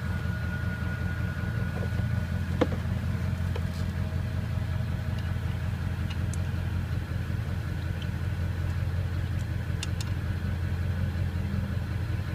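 A steady low engine hum, with a few sharp light clicks as the pump's metal probe is worked into the reservoir port.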